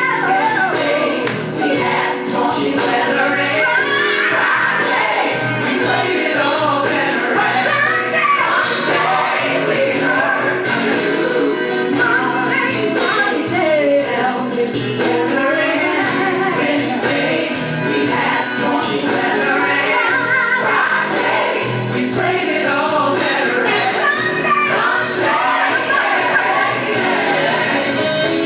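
Gospel music with a choir singing and female voices prominent, playing steadily throughout.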